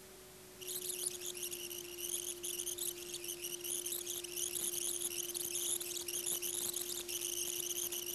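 Betacam video deck rewinding with its playback running: the tape's soundtrack comes through at high speed as dense, high fluttering chirps starting about half a second in. Under it sits a steady mid-pitched tone.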